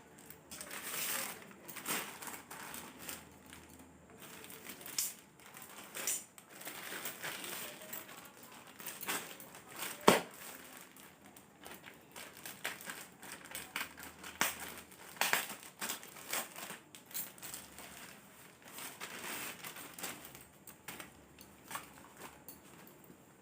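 Plastic packaging crinkling and rustling in irregular bursts as a t-shirt parcel is opened and unwrapped by hand, with a sharp snap about ten seconds in.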